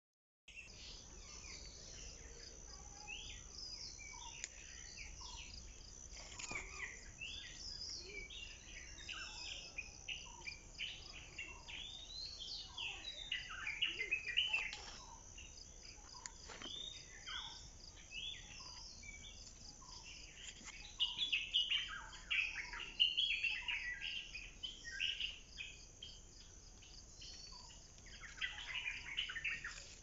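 Several birds chirping and calling, busier and louder around the middle and again about two-thirds through, over a steady high insect drone.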